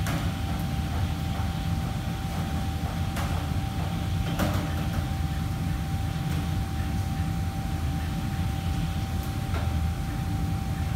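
Steady low mechanical hum of fans and kitchen machinery, with a thin constant whine over it. A few sharp clatters of kitchen utensils come through, two of them in the first half.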